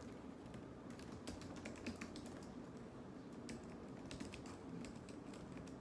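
Fingers typing on a computer keyboard: quick, irregular key clicks in bursts, faint over room hum.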